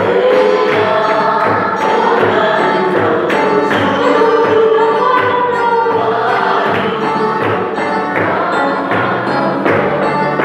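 Congregation singing a hymn together in chorus over the steady beat of a large drum.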